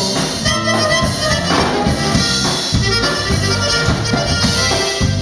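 A live Tejano band playing an instrumental passage between sung lines: drums keeping a steady beat under bass notes and a pitched lead melody.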